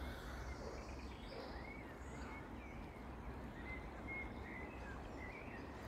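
Faint birdsong: a string of short, high chirps from small birds over a steady low background rumble.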